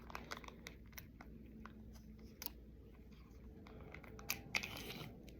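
Faint close-up chewing of food: scattered wet mouth clicks and small crunches, a few louder ones about two and a half and four and a half seconds in.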